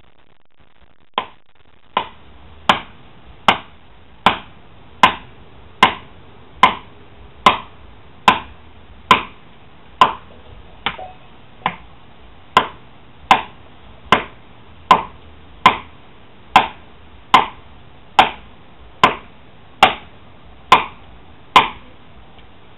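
Steady, evenly spaced blows struck into the base of a tree trunk, about one every 0.8 seconds, some two dozen in all, with two lighter blows about halfway through.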